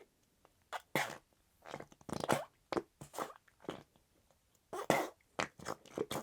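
Flarp noise putty being squeezed and worked by hand: a loose series of short squelches and squishes, irregularly spaced, the loudest about a second in, just after two seconds and about five seconds in.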